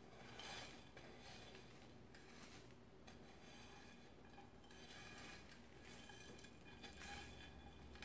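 Faint, intermittent scraping of a silicone spatula against a nonstick skillet, with the rustle of crunchy cornflake crumbs being pushed out of the pan.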